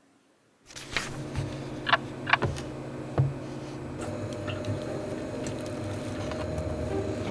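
A steady low hum starts suddenly, with a few sharp clinks and knocks in the first few seconds.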